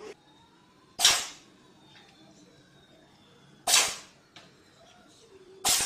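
Cat sneezing: three short, sharp sneezes, about a second in, just past halfway, and near the end.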